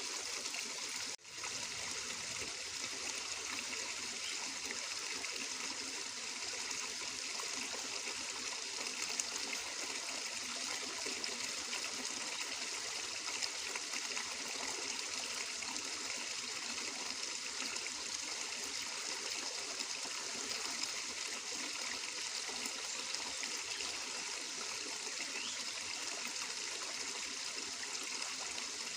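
Flowing water: a stream running and trickling steadily, with a momentary dropout about a second in.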